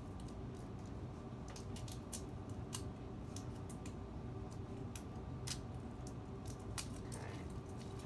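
Vinyl stencil being peeled off a painted pine board: scattered small crackles and ticks as the plastic film lifts and crumples in the hands.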